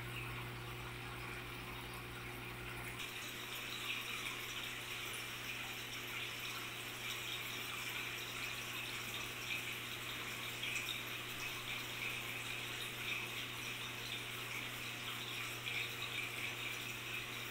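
Aquarium water running and trickling steadily, as from a filter return, with a low steady hum under it. The water sound turns brighter and a little louder about three seconds in.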